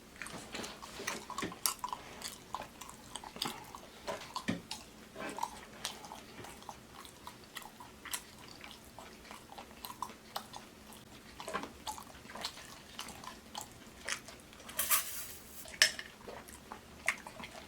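Close-miked chewing and lip-smacking: soft, wet mouth clicks scattered throughout, with a brief hiss about fifteen seconds in.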